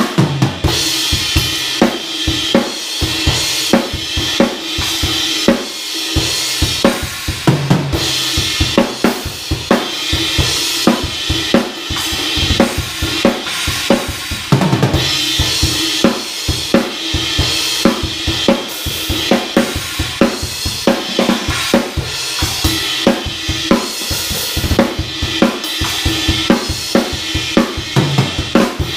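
Full rock drum kit played continuously at a fast, busy pace: kick drum, snare and toms struck in quick succession under a constant wash of crash and china cymbals.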